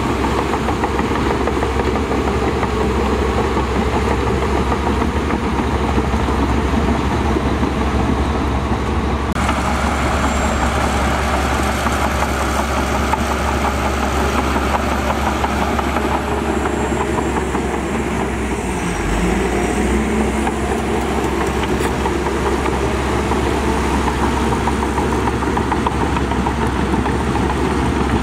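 Heavy diesel construction machinery, a bulldozer and dump trucks, running steadily with a continuous low engine rumble. The sound changes abruptly about a third of the way in, gaining more high hiss.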